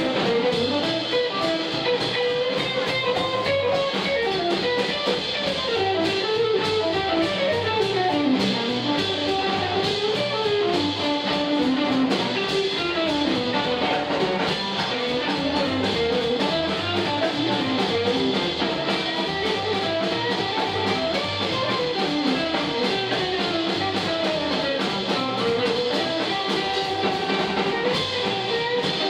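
Live blues band playing an instrumental passage without vocals: an electric guitar carries a winding melody over upright double bass and a drum kit keeping a steady beat.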